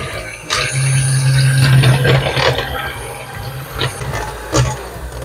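Electric hand mixer whipping cream in a plastic bowl, its motor running with a steady whir, loudest in the first two seconds, and a few sharp knocks later on. The cream is being whipped only to a creamy, soft stage, not stiff.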